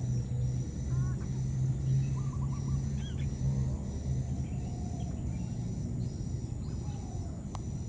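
Outdoor ambience: a steady low rumble with small high chirps repeating about twice a second and a few short calls.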